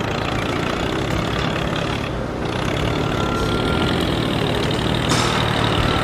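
Miniature toy tractor's small motor running steadily as it drives a drill bit into rock, with a thin whine that comes and goes.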